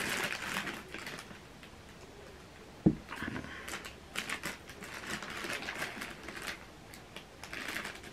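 Rustling and light clicking of gift wrapping being handled, with one sharp thump about three seconds in.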